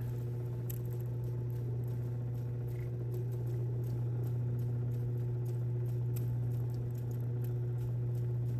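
Lapidary grinding machine's motor humming steadily while an opal is ground wet on the 600 wheel, with faint irregular scratchy ticks of the stone against the wheel and the water.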